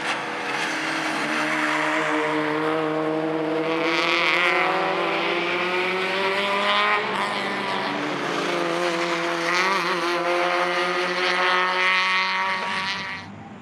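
Citroën Saxo VTS race car's four-cylinder engine accelerating hard, rising steadily in pitch, with a sharp upshift about halfway through before it climbs again. The sound drops away suddenly near the end.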